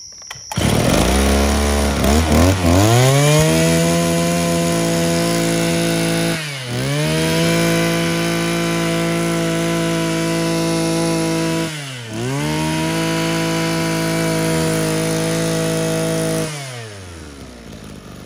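Mitsubishi TL261 26cc two-stroke brush cutter engine run on the throttle. It comes up from low speed to high revs within the first few seconds and holds there, dipping briefly twice, about six and twelve seconds in, then drops back to a low idle near the end.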